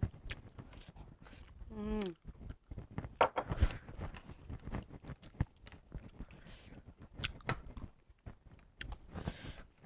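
Mealtime eating sounds: a scatter of small clicks and knocks, as from spoon and dish, with chewing and mouth sounds. A short falling hum of a voice comes about two seconds in.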